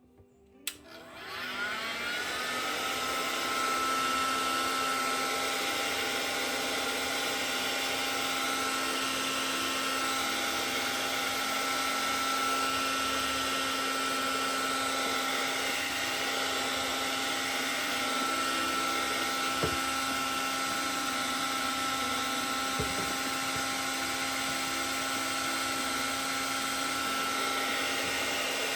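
Heat gun switched on with a click and running steadily, a fan whine over a hiss of blowing air, shrinking heat-shrink tubing over crimp splices on an extension cord.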